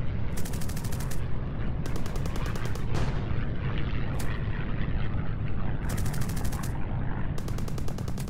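Machine-gun fire in bursts of about a second, four times, with a single short crack in between, over a steady low rumble of battle.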